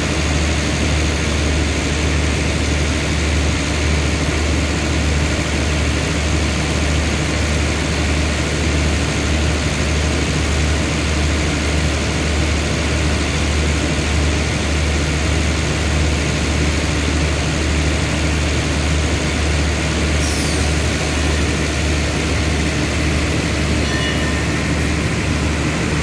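Steady low drone of the express train's diesel engine running.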